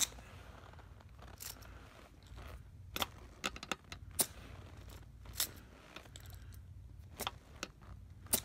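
Scattered short clicks and taps from handling a pencil-type tire pressure gauge on a tire's valve stem, about eight or nine in all, over a low steady hum.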